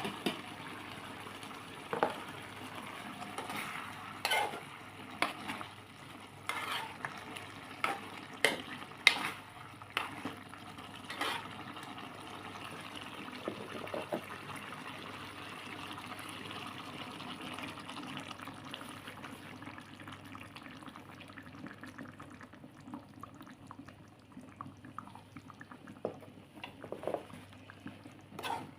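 A pan of chicken Bicol express sizzling and bubbling on the stove while a utensil stirs it, with irregular clacks and scrapes against the pan. The clacks are frequent in the first half and thin out later.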